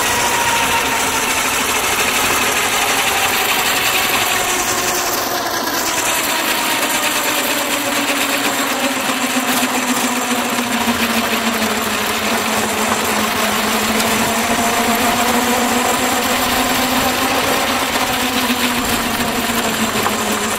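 Burrell double crank compound steam road locomotive running at speed on the road, with a rapid, steady mechanical clatter. A whine runs through it that slowly falls in pitch over the first half and rises slightly near the end.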